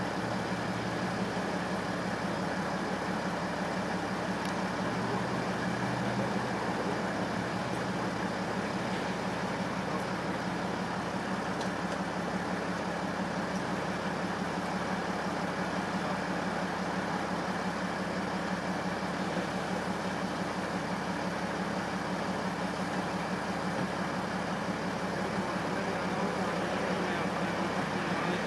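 A vehicle engine idling steadily: an even low hum with no revving.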